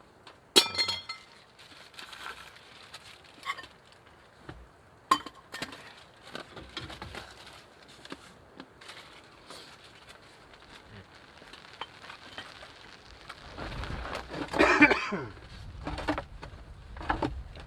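Forks clinking and scraping on plates during a meal: a sharp ringing metal clink about half a second in, another about five seconds in, scattered light taps between, and a louder clatter near the end.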